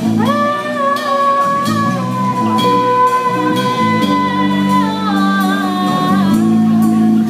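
Live band playing a Brazilian soul song: a woman sings long held notes over electric bass, electric guitar, keyboard and drum kit.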